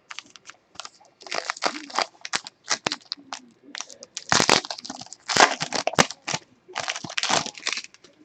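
Wrapper crinkling and tearing as trading card packs are ripped open, in a quick irregular run of crackling rasps.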